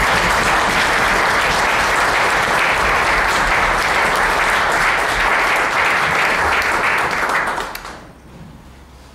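Theatre audience applauding: dense, steady clapping that dies away about eight seconds in.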